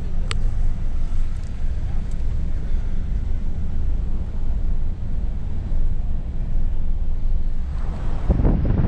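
Steady low rumble of a car driving slowly over brick pavement, heard from inside the cabin, with a short sharp click just after the start. Near the end, wind starts buffeting the microphone.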